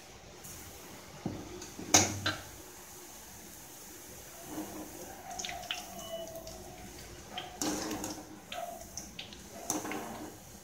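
Boondi frying in hot oil in a metal kadai, with a perforated steel ladle clanking and scraping against the pan as the fried boondi is scooped out and the oil stirred. The sharpest clank comes about two seconds in.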